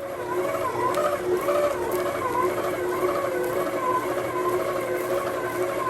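Electric mixer switched on and running with dough in the bowl, its motor whine wavering up and down about twice a second as the dough is worked. The butter is being mixed into the cinnamon-roll dough.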